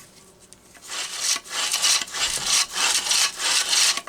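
Recoil starter of a Homelite Super XL chainsaw worked by hand: the starter rope rasps repeatedly out and back over the pulley in a quick series of scratchy strokes, as the starter is checked for being dry.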